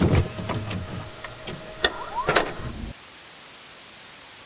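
A jumble of clicks and knocks over a hum, with two faint steady tones and a short rising chirp. About three seconds in it gives way to a steady, even hiss.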